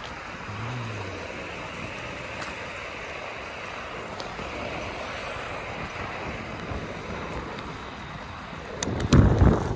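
Inline skate wheels rolling on wet asphalt, a steady hiss. Near the end, wind buffets the microphone in loud low rumbles.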